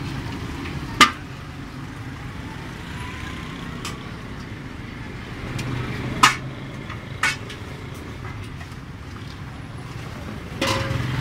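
Fish deep-frying in a large karahi wok over a gas burner: a steady sizzle of the oil over a low burner rumble, with three sharp metallic clinks of a metal skimmer against the wok, about a second in and twice around six to seven seconds.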